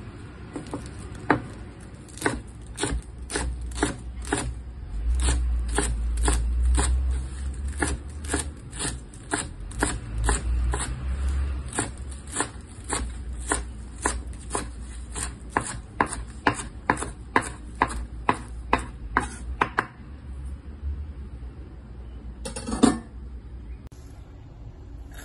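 Chef's knife chopping celery and chives on a wooden cutting board: steady, evenly spaced strokes at about two a second that stop a few seconds before the end. Near the end comes one louder knock.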